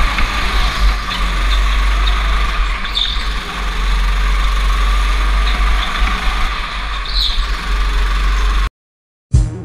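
Go-kart running at speed on an indoor concrete track, picked up by a camera mounted on the kart: a steady engine drone over heavy wind rumble, with tyres squealing briefly twice in the corners. The sound cuts off abruptly near the end.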